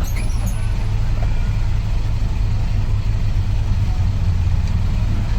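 Mercedes-Benz OM924LA four-cylinder turbodiesel of an LO 916 bus running steadily, its exhaust giving a constant low drone.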